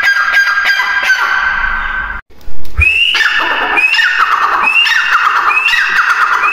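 Grey francolin (teetar) calling loudly: a fast run of repeated high notes, then, after a break about two seconds in, the call given over and over about once a second, each a short rising note followed by a quick descending rattle. A brief low bump sounds just after the break.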